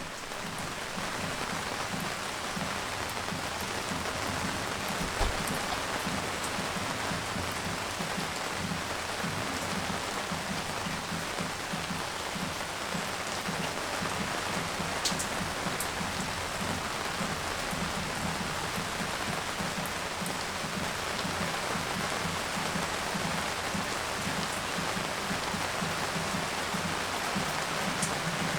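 Rain shower falling steadily, a dense even patter of drops on garden surfaces, with a few single louder drops standing out, a low thump about five seconds in and a sharp tick about fifteen seconds in.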